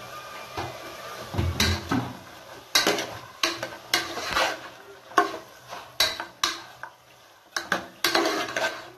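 Metal ladle scraping and clinking against the inside of a pressure cooker as chicken pieces and lima beans are stirred and sautéed. There is a string of sharp clinks and scrapes from about three seconds in, roughly one or two a second.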